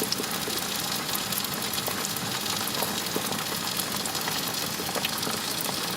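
Food frying in hot oil: a steady sizzle with frequent small crackles and pops.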